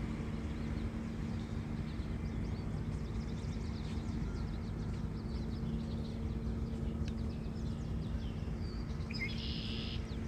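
A small bird's short, high chirps, faint and scattered at first, with a louder run of chirps near the end, over a steady low background rumble and hum.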